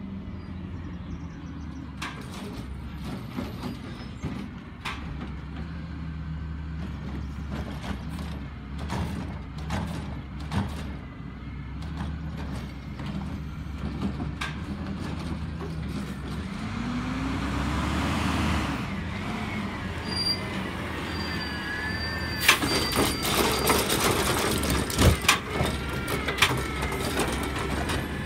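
Automated side-loader garbage truck's diesel engine running as it pulls up, with a hiss of air brakes and the engine revving up about two-thirds of the way in. Then its hydraulic arm lifts a wheeled trash cart and tips it into the hopper, with a wavering hydraulic whine and a run of loud clanks and thumps.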